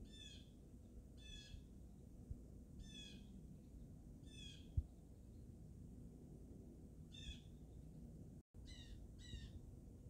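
Blue jay calling: seven short calls, about one every second and a half, with a longer gap in the middle and two close together near the end, over a low background rumble. A single low thump about five seconds in.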